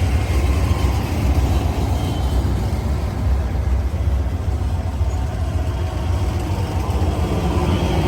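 Amtrak California Zephyr passenger train, led by two P42 Genesis diesel locomotives, pulling out of the station: a steady, heavy low rumble.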